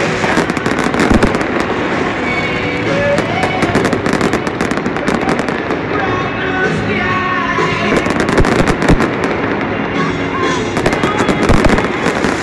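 A fireworks display going off in a rapid barrage, with many sharp bangs and crackles in quick succession. Music plays underneath.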